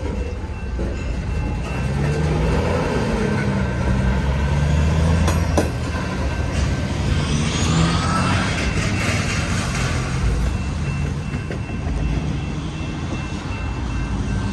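Covered hopper cars rolling slowly through a road grade crossing: a low rumble of steel wheels on rail with a single sharp clunk about five seconds in, as the last car moves off down the track.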